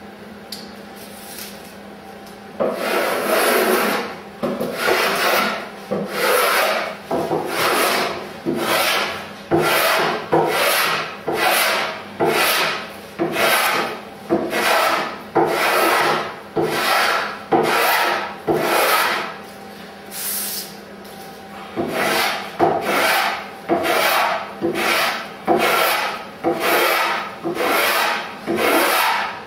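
Block plane shaving the wooden blade of a Greenland paddle, in repeated strokes a little faster than one a second, each stroke curling off a long shaving. The strokes begin a couple of seconds in and pause briefly about twenty seconds in.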